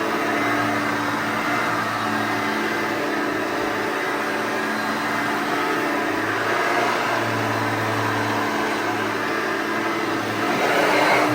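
1989 Hoover Elite 5.2 upright vacuum cleaner running steadily on its 5.2-amp motor, a constant hum and whir that swells briefly louder near the end.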